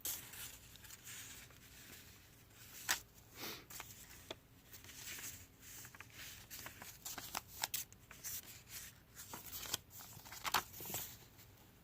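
Paper pages, cards and tags of a handmade junk journal being handled and turned, with soft rustling and scattered light paper taps and flaps, a couple of them sharper.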